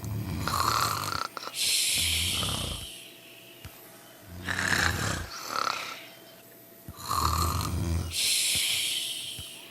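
Sleepers snoring: low rattling snores, each followed by a long airy hissing breath, in two or three slow breath cycles.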